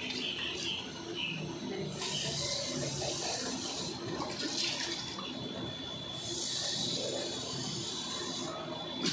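Tap water running into a plastic feeding bottle and splashing into a stainless steel sink as the leftover milk is rinsed out. The flow stops and starts a few times.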